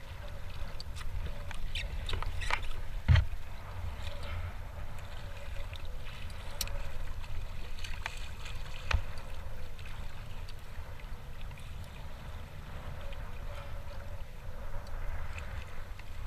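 Water sloshing and splashing against the side of a plastic fishing kayak as a large hooked ray thrashes at the surface, over a steady low rumble. A few sharp knocks stand out, the loudest about three seconds in.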